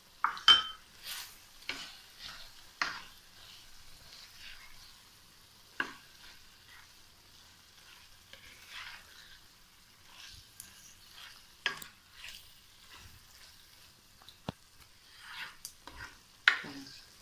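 A spatula stirring and scraping chicken jalfrezi around a nonstick kadai over a soft sizzle of frying. The spatula makes irregular scrapes and knocks against the pan, the loudest about half a second in.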